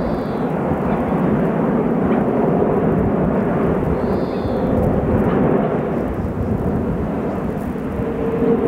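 Airbus A380's four turbofan engines passing overhead in a display turn: a steady, deep rumble of jet noise with a faint steady hum underneath.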